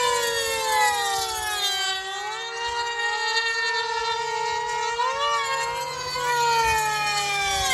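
High-pitched whine of an RC pylon racer's high-revving 0.40 cu in engine flying laps at full throttle. Its pitch swoops up and then falls away as the plane passes, about a second in and again after five seconds.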